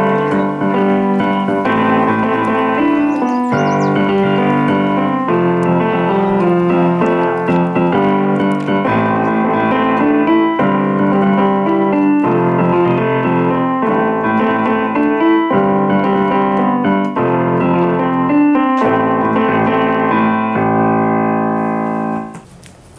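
Background piano music moving through a steady sequence of chords, ending on a held chord that cuts off near the end.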